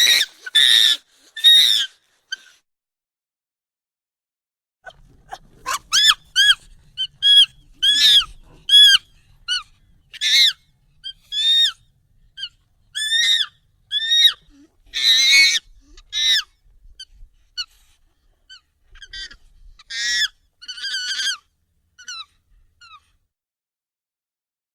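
A monkey's short, high-pitched calls, sped up and raised in pitch: three calls at the start, a pause of about three seconds, then a long irregular run of quick arched calls that thins out near the end.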